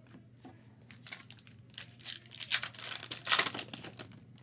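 Trading-card pack wrapper being torn open and crinkled by hand: a run of sharp crackling rips lasting about three seconds, loudest near the end.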